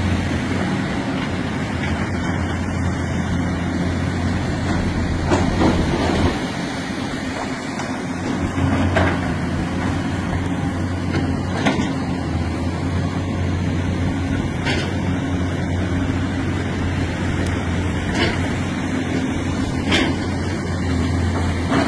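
Diesel engines of tracked hydraulic excavators running steadily under load, a deep drone that eases briefly about a third of the way through. Short sharp knocks come every few seconds.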